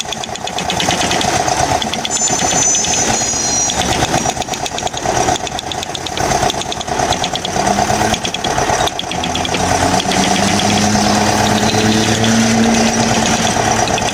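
A motor-driven power tool running continuously with a rapid buzzing pulse, its loudness wavering as it works.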